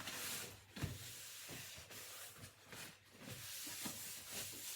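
Carbonation gas hissing out of a bottle of homemade kombucha as its cap is eased open to burp it. The hiss is strong at first, eases off in the middle and builds again. The brew is strongly fizzy.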